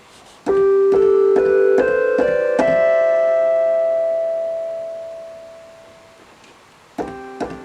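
Sequential OB-6 analog synthesizer playing a rising run of about six notes, the last one held and slowly dying away, then a fresh note near the end.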